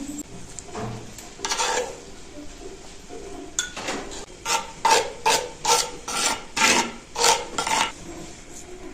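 A spoon stirring and scraping in a cooking pot: a single scrape near the start, then a quick run of about nine strokes, roughly two a second, from about halfway through.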